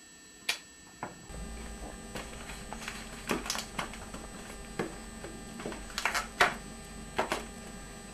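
White latex modelling balloons handled and pressed by hands, giving a string of short, sharp squeaks and rubs, over a steady mains hum that comes in about a second in.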